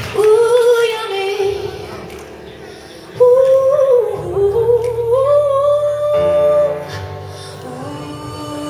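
A woman singing long, wordless held notes and runs into a microphone over sustained electric keyboard chords, the notes gliding up and down with a loud jump about three seconds in.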